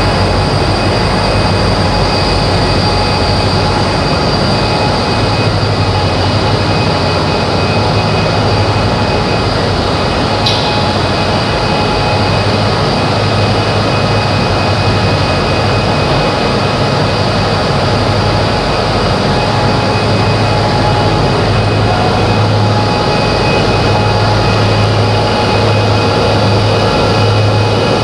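Olive oil mill machinery running steadily and loudly: a decanter centrifuge and vertical oil separators giving a constant low hum with a few held tones. A brief click about ten seconds in.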